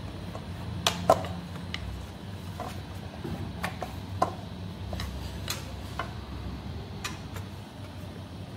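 Scattered light clinks and knocks of kitchen utensils as wheat-flour dough is kneaded by hand for parathas, over a steady low hum.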